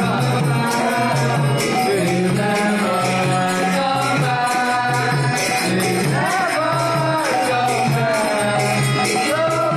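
Devotional kirtan: voices sing a chant over a mridanga drum's steady rhythmic beat, with jingling metal percussion on every stroke.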